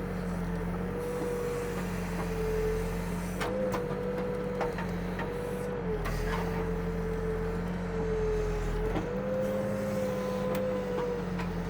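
Backhoe's diesel engine running steadily under the operator, with a hydraulic whine whose pitch shifts slightly a few times as the bucket works, dipping about halfway through and rising again near the three-quarter mark. A few faint knocks come through.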